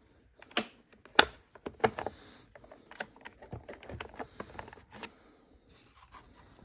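Irregular sharp clicks and knocks from handling a chainsaw's air filter cover, the loudest about half a second and a second in, with light rustling between them.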